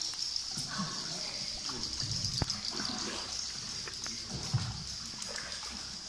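Water splashing and trickling around a small boat on an underground cave river, with a steady high hiss, faint distant voices and one sharp click about two and a half seconds in.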